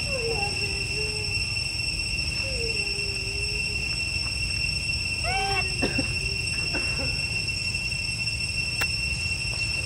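A long-tailed macaque giving a few short wavering cries. The loudest comes about five seconds in, a higher squeal that rises and falls. A steady high-pitched insect drone lies under it.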